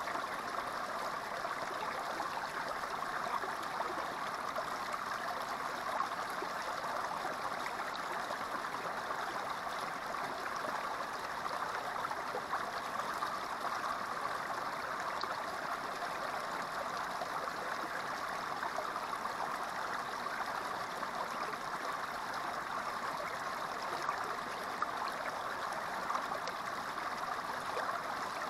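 Small creek running steadily, its water spilling down a short rock chute into a shallow pool.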